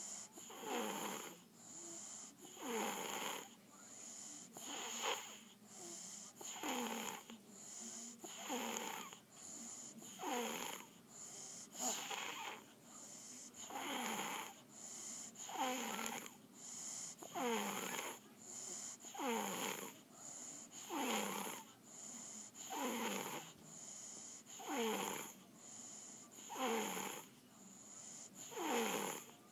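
A sleeping young boy snoring in a steady rhythm, about one snore every two seconds, each with a falling pitch.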